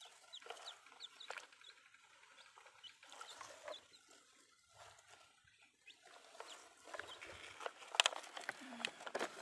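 Short bird calls repeating in the background, with a few sharp clacks of plastic toy trucks being handled near the end.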